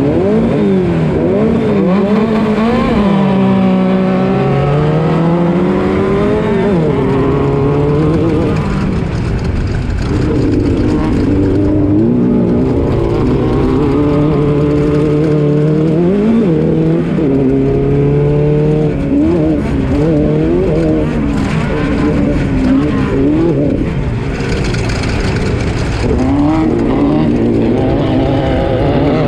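Class 12 off-road race car's engine running hard, its pitch repeatedly climbing and dropping as it revs up and comes off the throttle, over steady rumbling noise.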